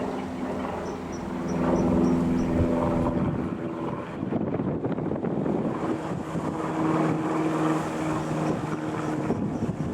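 Single-engine Robin DR400-180 light aircraft's four-cylinder piston engine and propeller droning in flight, with wind buffeting the microphone.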